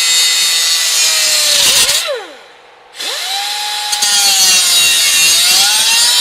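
A high-speed power tool cutting a feed hole in a metal utensil holder, its motor whining over a hissing grind. About two seconds in the tool stops and winds down. A second later it spins back up and cuts on, its pitch rising.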